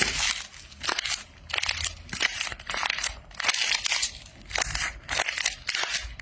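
A soft squishy object being squeezed over and over, making crunchy, crackling squishes about twice a second.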